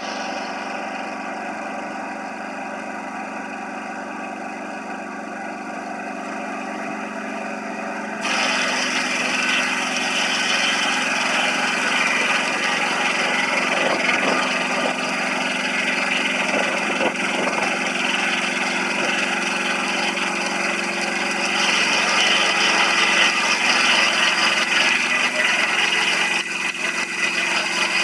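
Sawmill's engine running steadily, then about eight seconds in the saw starts cutting wood and the sound turns louder and rougher, engine and sawing together.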